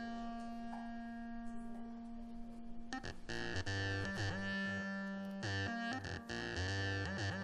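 Background music on synthesizer or electronic keyboard: a long held chord for about three seconds, then a quicker run of changing notes.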